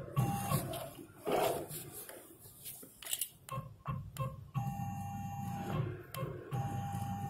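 CNC router's Z-axis stepper motor whining as the spindle is jogged down toward the workpiece. The steady tone starts about four and a half seconds in, stops briefly, and starts again near the end.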